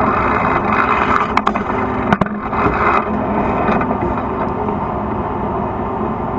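T-72 tank's V-12 diesel engine running steadily, heard from on the tank, with a few sharp cracks about one and a half and two seconds in.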